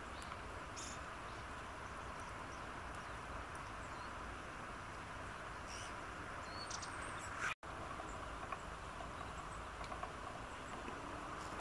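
Steady faint outdoor background hiss with a few brief, faint high chirps of small birds; the sound cuts out for an instant about seven and a half seconds in.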